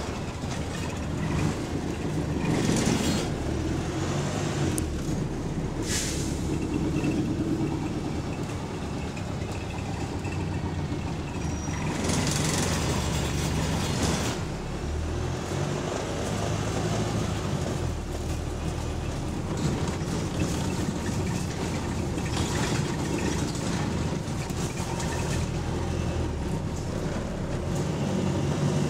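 Interior of a Wright StreetLite single-deck bus on the move: the diesel engine drones steadily while loose fittings and panels rattle with it. A few short hisses of air, the loudest about 12 seconds in, break over the rattling.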